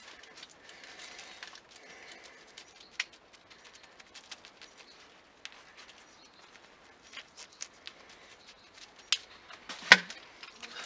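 Wet potting soil and its small metal container handled by hand: scattered small clicks and taps, with sharper knocks near the end.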